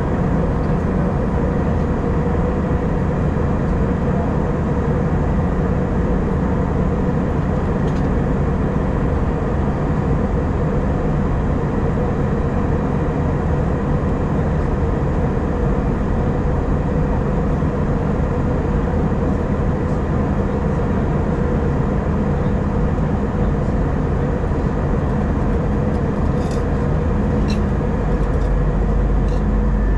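Steady cabin noise of a jet airliner in flight: a constant drone of engines and rushing air, unchanging in level, with a steady hum running through it.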